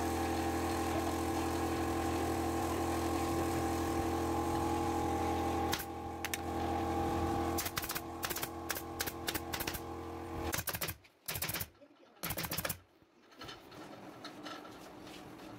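Pneumatic upholstery staple gun firing a quick run of shots into sofa fabric over a steady motor hum; the hum stops about ten seconds in, and a few more sharp shots follow.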